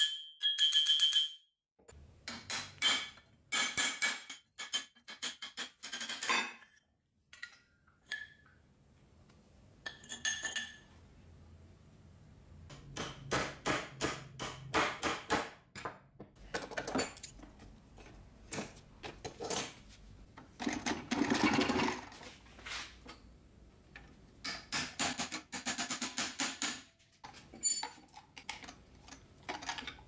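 Bursts of metal clinking, knocking and scraping from spanners and other steel hand tools working on an old electric drill's parts, with a short metallic ringing near the start.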